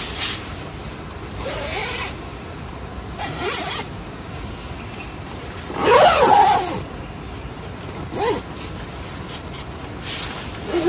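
Steady hiss of heavy rain on a tent, with four short, squeaky rasping strokes as the tent's fabric and zipper are worked, the loudest about six seconds in.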